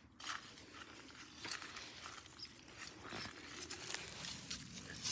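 Faint rustling and crackling of dry pine needles, disturbed by a hand and feet, with a few short scattered crackles.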